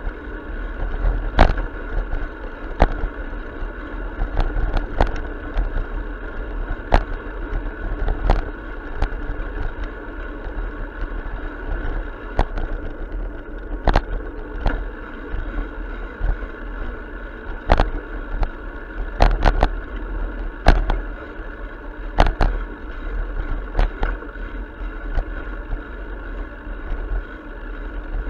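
Riding noise of a bicycle heard from a camera on the bike: a steady low rumble of wind and rolling tyres, broken irregularly by sharp clicks and knocks as the bike jolts over the pavement.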